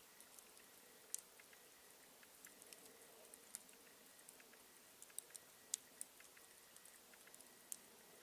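Campfire wood crackling: faint, irregular sharp pops and snaps over a quiet hiss, the loudest pops about a second in and near six seconds.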